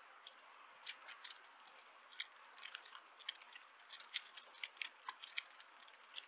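A bicycle being ridden, with irregular sharp clicks and ticks over a faint steady hiss.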